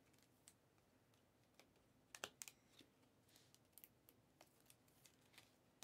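Faint clicks and light rustling of trading cards being handled, with a card slid into a clear plastic sleeve. There is a quick cluster of clicks about two seconds in and a sharper click near the end, over near silence.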